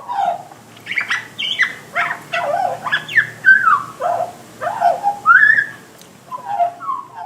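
A bird singing a continuous run of varied, warbling phrases that slide up and down in pitch, over a faint steady hiss.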